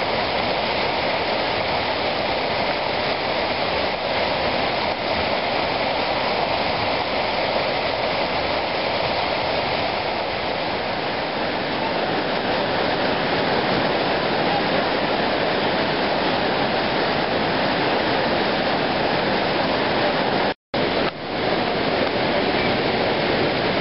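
Bear River whitewater pouring over the granite ledges of Screw Auger Falls: a steady, loud rush of falling water. The sound drops out for a split second about twenty seconds in.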